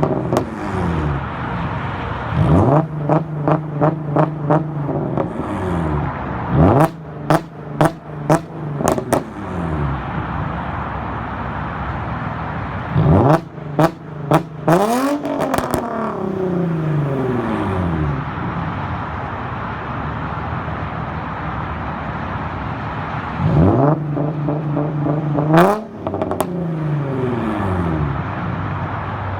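Nissan 350Z's 3.5-litre V6 with muffler and resonator deleted, revved up from idle: a string of quick throttle blips, then two longer revs that fall back to idle, with crackles and pops on the overrun.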